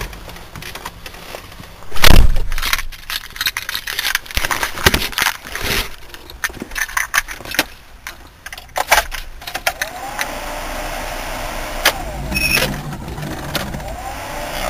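Keys rattling and clicking, with one loud thump about two seconds in, then the Range Rover's 3.5-litre Rover V8 starts about ten seconds in and runs steadily on cold start.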